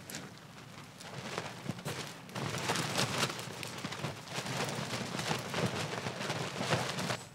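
Ultralight nylon tent (Big Agnes Copper Spur HV UL2) rustling and crinkling as it is lifted on its poles and shaken. The rustle gets much louder about two and a half seconds in and stops suddenly at the end.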